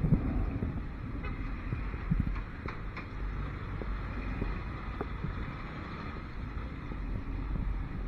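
Motorcycle engine running at low speed in slow, congested street traffic, with the rumble of cars and trucks close around it. Two brief louder thumps stand out, one at the start and one about two seconds in.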